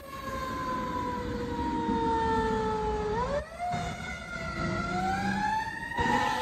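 Fire engine siren wailing, its pitch falling slowly for about three seconds, then rising again after a brief break.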